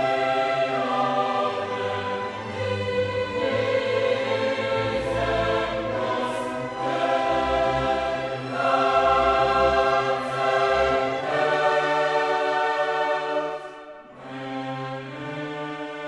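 Classical background music: a choir singing slow, held chords with orchestra, growing quieter about fourteen seconds in.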